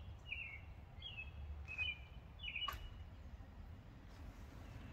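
A bird chirping in short falling notes, four in the first three seconds or so, over a steady low rumble of outdoor background noise, with a couple of sharp clicks among the chirps.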